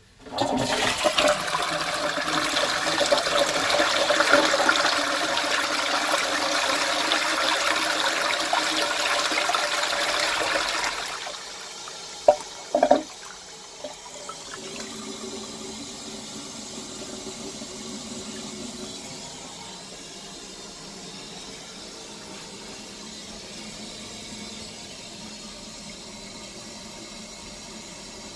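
Twyford Classic 6-litre low-level cistern flushed by its lever into a New Selecta toilet pan: a loud rush of water for about ten seconds. A flush the owner calls really terrible. Then two short sharp sounds, and the quieter steady hiss of the cistern refilling.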